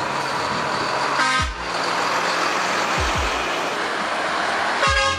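Heavy truck driving by with steady engine and road noise, its horn tooting briefly twice: about a second in and again near the end.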